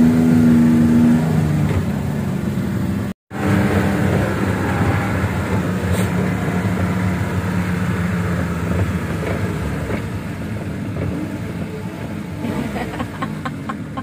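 Engine of an open-sided vehicle running steadily while driving, with heavy wind and road noise. The sound cuts out completely for a moment about three seconds in, then the engine hum carries on.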